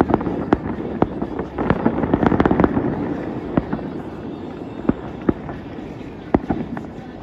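Fireworks display heard at a distance: a rapid run of bangs and crackles over a rolling rumble, thickest in the first three seconds, then thinning to scattered bangs and growing quieter.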